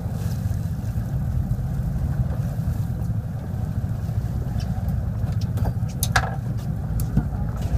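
Fishing boat's engine running with a steady low rumble under wind and sea noise. A few sharp clicks and knocks come in the second half.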